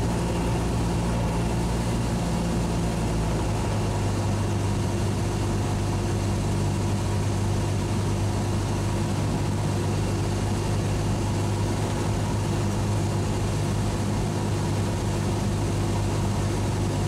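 Cessna 172's piston engine and propeller droning steadily in flight, heard inside the cabin. The low tone of the drone shifts slightly about three and a half seconds in.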